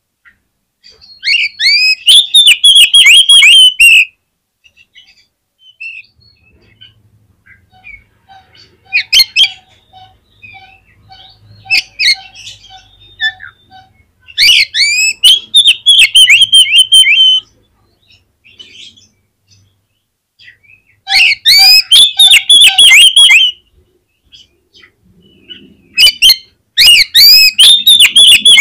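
Oriental magpie-robin (kacer) singing vigorously: four loud bursts of rapid, sweeping whistled notes, each a couple of seconds long, with pauses between them filled by scattered softer notes.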